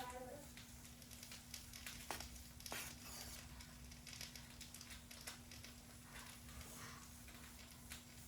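Near silence in a small room: a steady low hum with a few faint scattered clicks and brief rustles.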